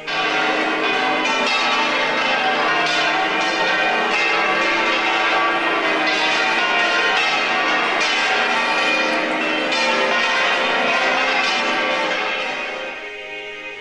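Church bells pealing, many bells ringing together and overlapping. They start suddenly and fade out near the end.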